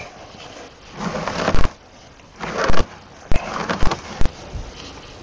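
Heavy wooden gate being shifted and dragged by hand: stretches of scraping and several sharp knocks.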